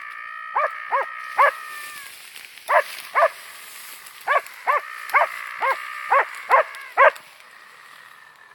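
Young West Siberian Laika barking at a raccoon dog in short, high yelps: about a dozen in three bursts, over a steady high whine. The barking stops about seven seconds in.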